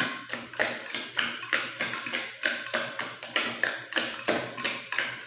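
Quick, even series of light taps and clicks on a glass blender jar, about three a second, as pieces of aloe vera are put into it by hand.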